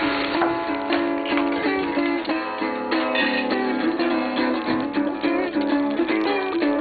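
Background music: a plucked string instrument playing a melody of quickly changing picked notes.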